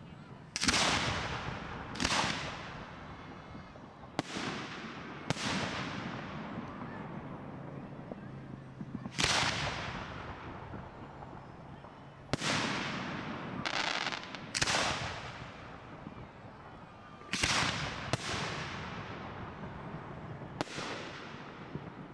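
Aerial fireworks going off in a display: about eleven loud booms at irregular intervals, some close together in pairs, each trailing off in a long fading echo.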